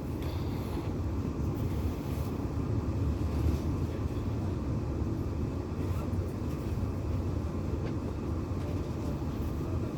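Steady low rumble and hum inside a passenger train carriage standing still, its onboard equipment running while it waits at a red signal.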